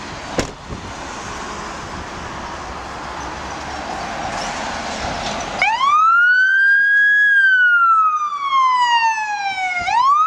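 Road traffic passing for the first half, then about halfway through the electronic siren of a 2019 Rosenbauer Commander pumper/rescue fire engine starts in a wail. It sweeps quickly up, falls slowly, then rises again near the end, the fire engine turning out code 3 on an emergency call.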